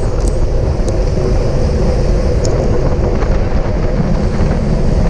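Steady loud wind rush buffeting the microphone of a GoPro on a racing bicycle at speed, with a few faint ticks.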